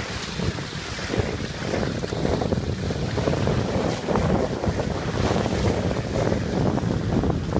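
Vehicle driving through slush and overflow water on lake ice: a continuous rushing, splashing noise of tyres in wet snow, with wind buffeting the microphone.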